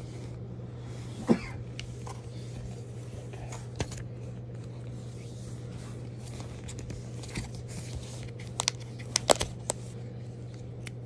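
Apple AirTags and their paper-card packaging tray being handled: small scrapes and scattered sharp clicks, with a cluster of louder clicks about nine seconds in, over a steady low hum.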